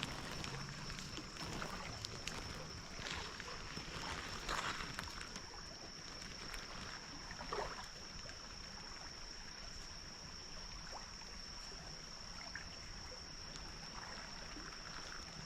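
Shallow creek water running and trickling, with a steady thin high-pitched tone throughout and a few brief soft splashes in the first half.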